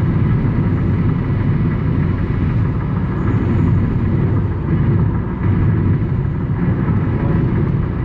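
Steady low rumble of road and engine noise inside a car's cabin while driving at freeway speed.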